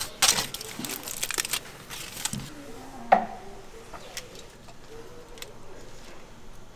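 Aluminium foil crinkling as it is folded open, a dense crackle for about the first second and a half. After that come a few light scattered clicks and one sharp click about three seconds in.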